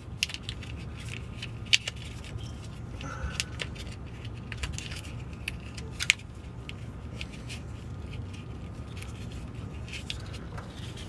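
Plastic electrical connectors and the wire loom of a fuel pump wiring harness being handled and fitted: scattered small clicks and scraping, the sharpest about two seconds in and again about six seconds in, over a steady low hum.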